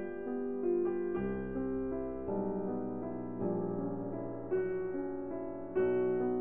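Background piano music: a slow, gentle piece with a new note or chord about once a second, each note held and ringing on.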